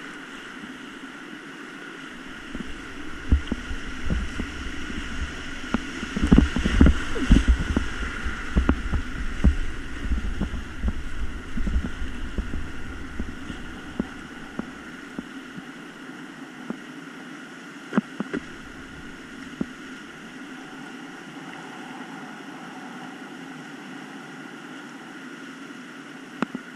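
Rushing whitewater around an inflatable kayak running a rapid. A run of thumps and splashes from about three to fourteen seconds in as the boat pushes through the waves, then a steadier rush with a few knocks later.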